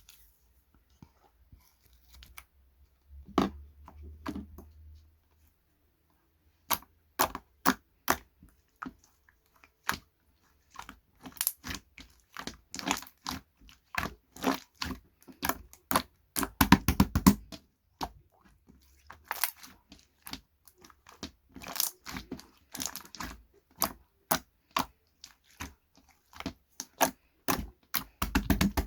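Irregular crisp crackling and crunching close to the microphone: many short sharp snaps, sparse at first and coming thick and fast from about seven seconds in, with a few duller, heavier thuds among them.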